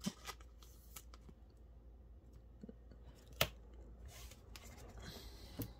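Quiet handling of a trading card and plastic: a card slid into a clear plastic sleeve, a few small clicks, a sharper click about three and a half seconds in, then a soft rustle.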